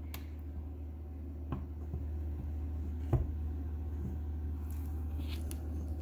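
A steady low hum, with a few faint clicks and light knocks as a USB plug is handled and pushed into a tablet computer's port, the loudest knock about three seconds in.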